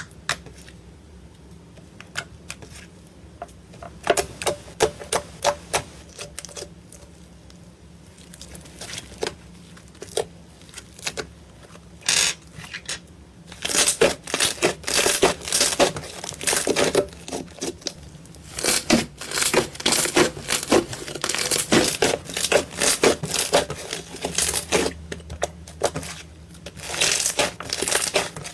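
Slime being squeezed and worked, giving bursts of sharp crackling pops and squishes, sparse at first and dense through the second half.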